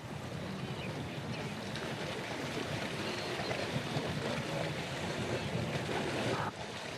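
Steady rushing noise, with no clear pitch or rhythm, which cuts off abruptly about six and a half seconds in.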